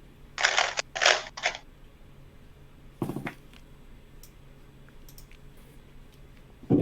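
Puzzle cube being turned by hand: three short bursts of rapid plastic clacking in the first two seconds.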